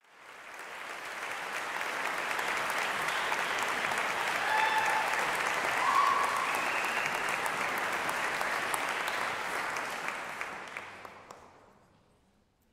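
Audience applauding, building up over the first second or two and dying away near the end, with a few brief pitched calls above it midway.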